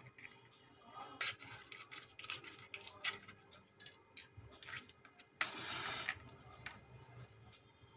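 Faint small clicks and taps of hand tools handling a new charging jack on a mobile phone circuit board, with a short hiss about five and a half seconds in.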